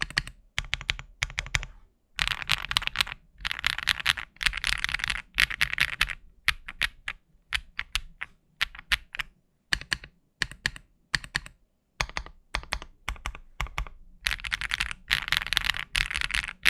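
KBDFans Tiger 80 mechanical keyboard in stock form being typed on: fast runs of keystrokes, with slower single key presses in the middle stretch.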